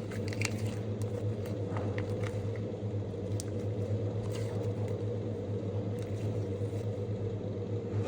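Homemade slime being pressed and stretched by hand, giving scattered small clicks and pops over a steady low hum.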